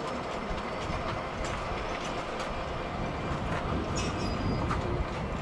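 Class 52 'Western' diesel-hydraulic locomotive drawing a train slowly into a station: a steady low rumble with occasional clicks of wheels over rail joints.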